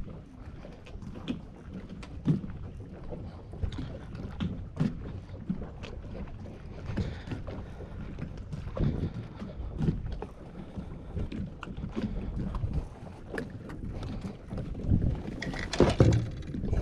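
Wind buffeting the microphone in a low, uneven rumble, with scattered light knocks and taps and a louder gust-like swell near the end.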